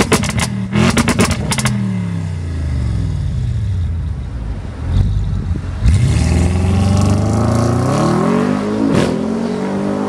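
Audi RS6 C7's twin-turbo V8 through its stock exhaust with catless downpipes: sharp crackles and pops as the revs drop at the start, the engine note falling away, then the revs climbing again from about six seconds in and dropping off near the end.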